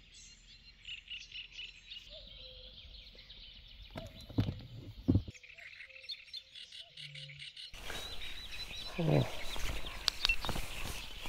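Outdoor lake ambience with birds chirping repeatedly. A few sharp knocks come around four to five seconds in. Near eight seconds the background turns suddenly to a louder steady hiss.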